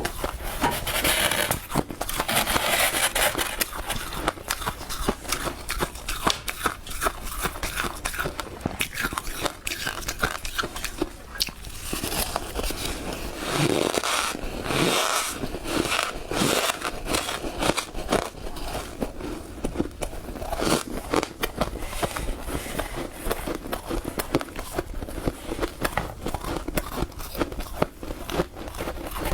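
Freezer frost being bitten and chewed close to the microphone: a dense, irregular run of crisp crunches and crackles.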